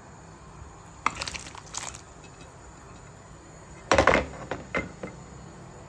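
Kitchenware and ingredients being handled: a quick run of light clicks and knocks about a second in, then a single louder knock about four seconds in followed by a few small clicks.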